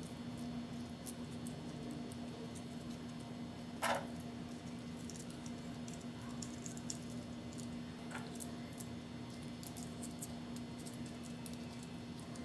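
Small camera shoe-mount adapters being handled and slid together: light clicks, ticks and scrapes, with a sharper click about four seconds in and another about eight seconds in, over a steady low hum.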